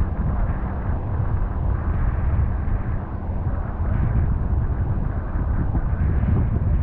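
Wind buffeting an open microphone: a steady low rumble.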